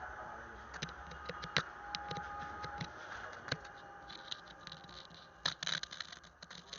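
Scattered clicks, taps and scraping of objects being handled, coming irregularly and thickest near the end.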